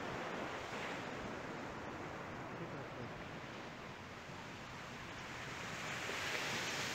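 Small ocean surf breaking and washing up a sandy beach as a steady wash of noise, swelling louder near the end as a wave comes in.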